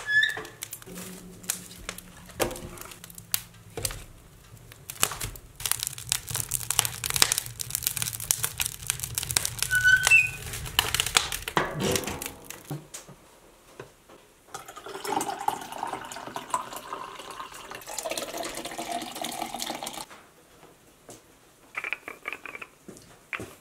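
Wood-burning stove being tended: dense crackling, crumpling and sharp clicks as the fire is lit and fed.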